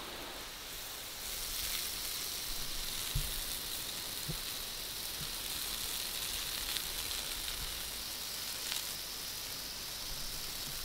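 Garden hose spray nozzle shooting a steady jet of water onto a paved driveway, a continuous hiss of spray and splashing as it washes mud along.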